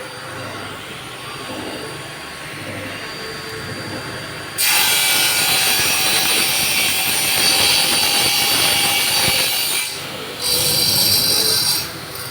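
Table saw running free with a steady motor hum, then about four and a half seconds in the blade bites into a workpiece and the sound turns much louder and harsher for about five seconds. After a brief drop back to the free-running hum, it makes a second, shorter cut near the end.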